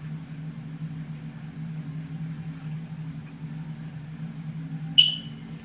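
A steady low hum, with one sharp click that rings briefly about five seconds in.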